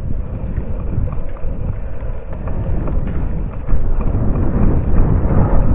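Wind buffeting a bike-mounted camera's microphone while a mountain bike rolls along a dirt singletrack, with low rumble from the tyres over the ground and a few small knocks. It grows louder about two-thirds of the way through.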